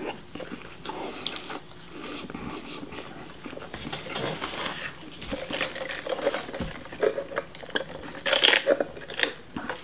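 A person biting into and chewing a Big Mac: close, wet mouth sounds with small irregular crackles. Near the end comes a louder short sip through a straw from a soft-drink cup.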